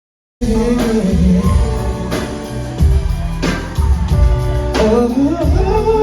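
Live band music with a heavy bass line and drum hits, starting abruptly about half a second in. Near the end a sung line glides up and down over the band.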